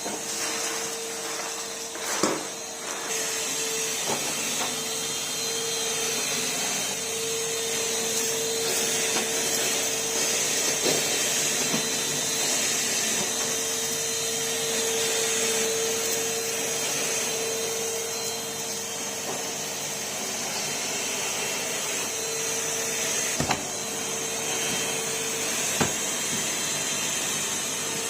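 Numatic Henry vacuum cleaner running steadily while vacuuming a floor, with a few light knocks of the tool against things.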